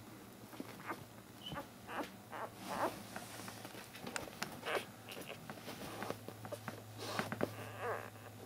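Mother dog licking and nuzzling her newborn puppy: a run of wet licking clicks and smacks, with faint puppy squeaks near the end, over a low steady hum.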